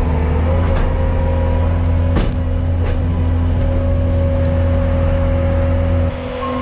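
Bobcat skid-steer loader's diesel engine running steadily, with a sharp clank about two seconds in. Near the end the engine note drops.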